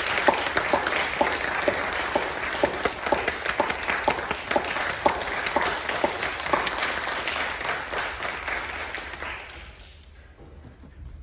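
Audience applauding, a dense patter of many hands clapping that dies away about nine to ten seconds in.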